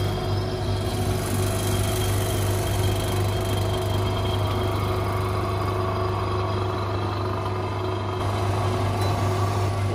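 Electric vacuum pump running with a steady low hum as it evacuates the chamber of an OCA vacuum laminating machine for a phone screen, drawing the vacuum down toward about −77 kPa.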